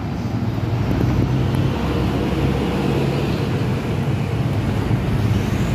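Road traffic: a diesel dump truck and cars passing, a steady low engine rumble.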